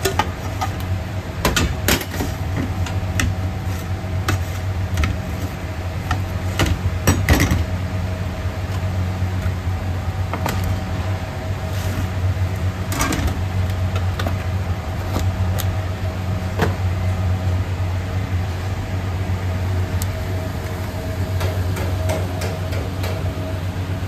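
Steady low hum of running commercial kitchen machinery, with scattered clinks and knocks from a metal pizza pan and a cardboard pizza box being handled. The loudest knocks come about seven seconds in and again a few seconds later.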